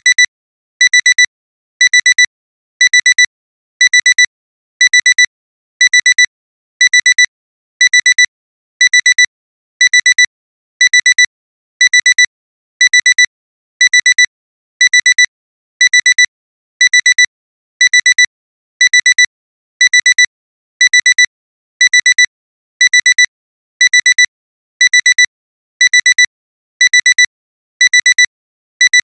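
Digital alarm clock alarm beeping continuously: a high beep in short clusters of rapid pulses, repeating about once a second, signalling that the timer has run out.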